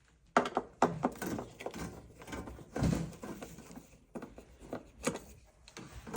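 Irregular knocks, clicks and rustling of refrigerator parts and panels being handled by hand, beginning about half a second in.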